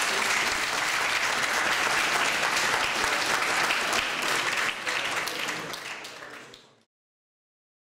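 Audience applauding, fading out and cutting off near the end.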